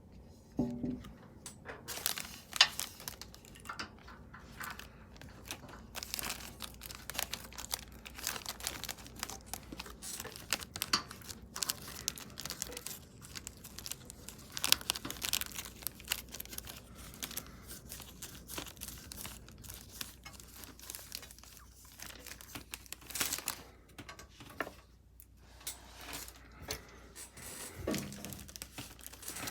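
Irregular clicks, taps, scrapes and rustling of hands handling the case's metal mounting parts and screws while fitting a glass side panel to a PC case.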